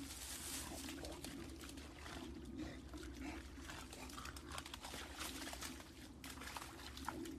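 Faint, irregular rustling and crackling of dead leaves under a bulldog running through woodland leaf litter, over a steady low hum.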